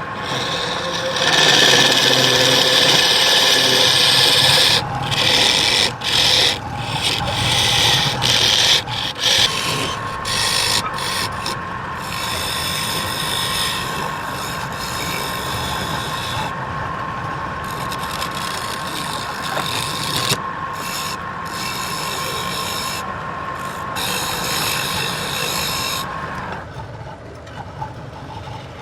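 Wood lathe running while a turning tool scrapes against the spinning wood, a steady rasping hiss that breaks off briefly many times as the tool lifts. The scraping stops near the end.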